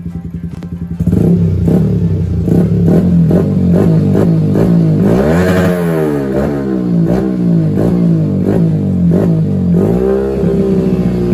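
Yamaha WR 155's single-cylinder engine running, its throttle blipped over and over so the revs swing up and down, with one bigger rev about halfway, then settling to a steady idle near the end. The engine is being run to see whether it will hold a steady idle after its throttle position sensor was reset to zero.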